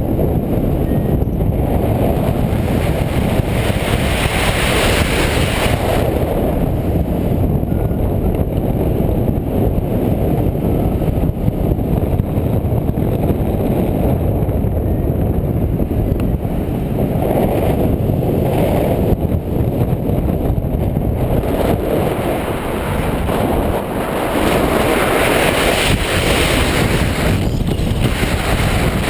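Airflow buffeting a paraglider pilot's harness-mounted camera microphone in flight: a loud, steady wind rumble that swells and hisses brighter in gusts several times.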